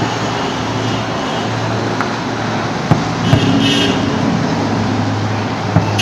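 Dense outdoor noise of a busy crowd and street with a steady low hum, broken by two sharp firework bangs, about three seconds in and near the end.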